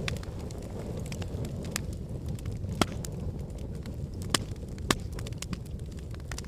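Wood fire in a fireplace crackling over a steady low rumble of flames, with scattered sharp pops; the loudest pops come about three seconds in and twice more around four and a half and five seconds in.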